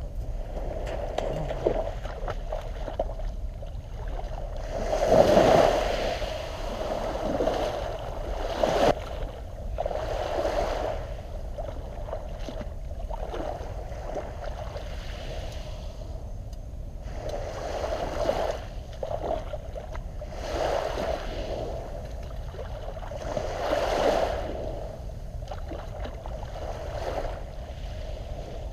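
Shallow seawater splashing and sloshing at the water's edge, rising in irregular surges every few seconds over a steady wash.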